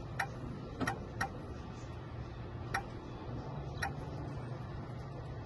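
Five sharp, short clicks at uneven intervals, typical of buttons being pressed on a key-cutting machine's keypad as a key code is entered. A low steady hum runs underneath.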